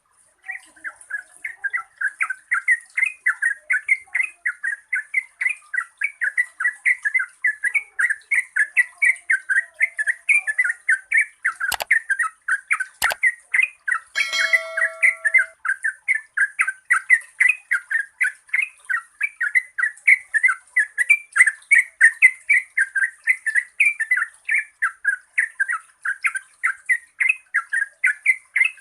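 Yellow-vented bulbul singing a long, unbroken run of quick chattering notes, about four a second: the rapid 'ropel panjang' song that keepers play to get quiet bulbuls singing. Two sharp clicks come near the middle, followed by a brief pitched tone.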